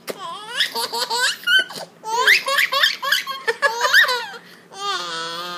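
Baby laughing hysterically: a rapid run of high-pitched, squealing bursts of laughter, followed by a longer held note of voice near the end.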